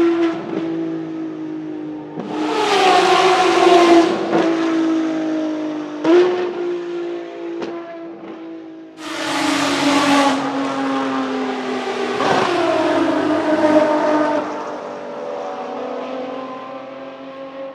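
Ferrari XX-programme V12 track cars running flat out on a wet track, the engines' high-revving note falling slowly in pitch. Cars pass close by about two seconds in, nine seconds in and twelve seconds in, each pass carrying the hiss of water spray thrown up by the tyres.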